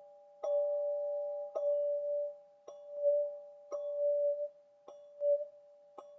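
A two-note chime struck rhythmically about once a second, six strikes in all, each ringing on in two steady overlapping notes.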